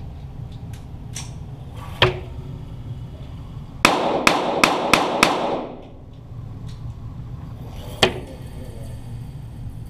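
A rapid string of five .22 pistol shots about a third of a second apart, with a single sharp report about two seconds in and another near the end.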